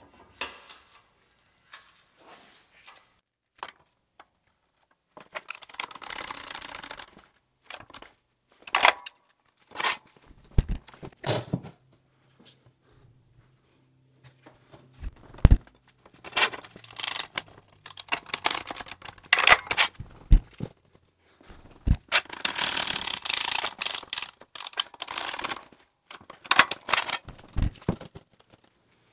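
Steel flat bar being handled on a wooden workbench: scattered clanks and knocks, with stretches of scraping and sliding in between.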